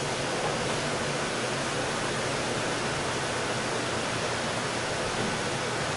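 Liquid nitrogen boiling hard as a room-temperature mock-up photomultiplier array is lowered into it: a steady, even rushing hiss.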